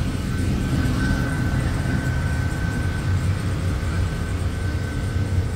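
Steady low rumble from a Cochran steam boiler in steam, with a thin steady whine above it.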